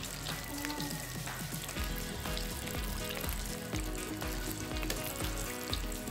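Hot oil sizzling as stuffed pastries deep-fry in a steel karahi, with light metal scrapes as they are turned with tongs and a wire skimmer. Background music with a steady beat comes in about two seconds in.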